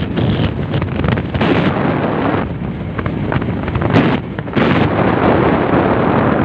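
Wind buffeting the microphone: a loud, continuous rumble that swells and eases in uneven gusts, dipping briefly about two and a half and about four seconds in.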